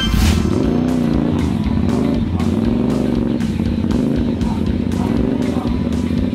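A Kawasaki and a CF Moto sport motorcycle revving and pulling away from a standing start, with the engine pitch rising and falling several times as they accelerate. Background music with a steady beat plays over it.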